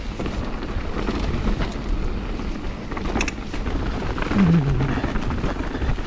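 Mountain bike descending a rough, muddy trail: tyres rumbling over ground and roots, with the bike rattling and a sharp knock about three seconds in, and wind buffeting the action camera's microphone.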